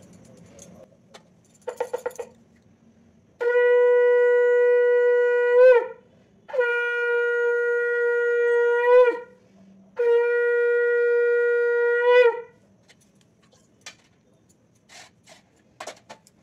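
A conch shell (shankha) blown three times, each a long steady note of about two and a half seconds that flicks up briefly in pitch as it ends.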